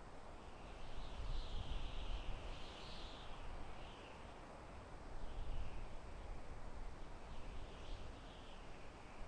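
Soft wind blowing through forest trees, a steady rush with a low rumble that swells and eases in gusts. Faint high bird chirping comes and goes over it, most clearly a second or two in and again near the end.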